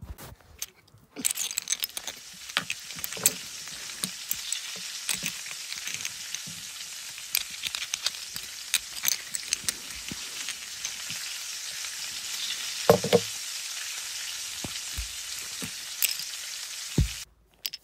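A continuous crackling, sizzling hiss full of small clicks and pops, with a louder knock near the end of the second third, cutting off abruptly just before the end.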